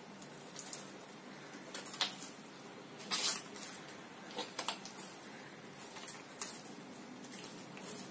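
Oiled bread dough being stretched and folded by hand on a worktop: irregular soft squelches and slaps, the loudest about three seconds in.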